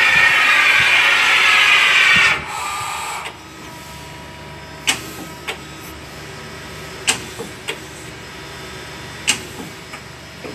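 Okuma LS-30N CNC lathe running: a loud hissing whine, sliding slightly down in pitch, cuts off about two seconds in. A quieter machine noise runs on for about another second, then gives way to a low steady hum with a faint tone. Several sharp clicks sound over the hum.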